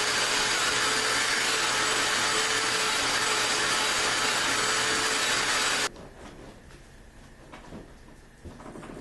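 Wet/dry vacuum running steadily as it sucks water out of wet upholstery fabric, then switched off about six seconds in. A few light knocks of handling follow.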